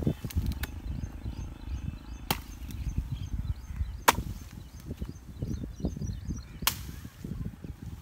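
Axe chopping a fresh, leafy shisham (tahli) branch: four sharp strikes on the wood, roughly two seconds apart, over a low rumble of wind on the microphone.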